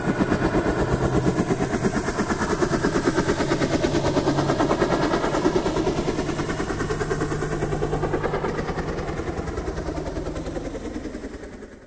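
Intro sound effect: a fast, even rattle of many pulses a second over a low steady hum. It fades a little toward the end, then cuts off suddenly.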